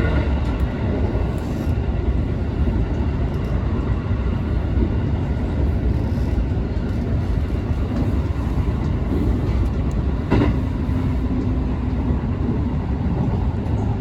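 JR West 221 series electric train running along the track, heard from on board: a steady low rumble of wheels and motors, with one sharp clack about ten seconds in.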